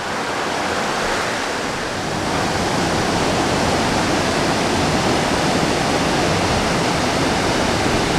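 Steady rush of fast water from the creek and its waterfalls in a rock gorge, building slightly over the first couple of seconds and then holding even.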